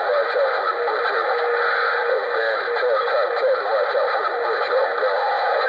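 Galaxy DX 95T CB radio on channel 6 putting out a garbled jumble of overlapping transmissions with no clear words. A steady tone runs underneath for about two seconds, starting a little over a second in.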